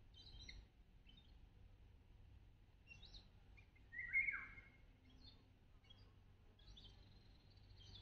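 Faint woodland birdsong: scattered short, high chirps from small birds in the pine canopy, with one louder, brief call about halfway through.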